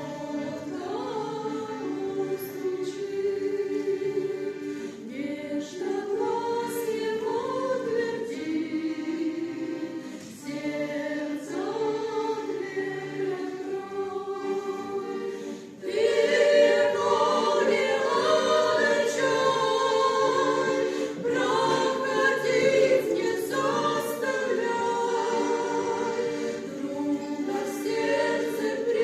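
Choir singing a Christian hymn in phrases, becoming noticeably louder and fuller about sixteen seconds in.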